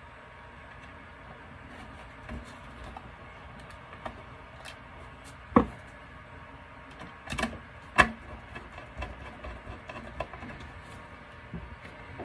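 Scattered clicks and light knocks of a hand screwdriver and a metal power supply and bracket being handled while a screw is driven in by hand to fasten the power supply to the controller bracket. A few sharper clicks come about halfway through and again about two-thirds through.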